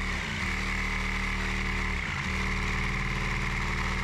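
Power tool cutting through the metal wall of a shipping container, running steadily. The motor's pitch dips briefly twice as it bites into the metal.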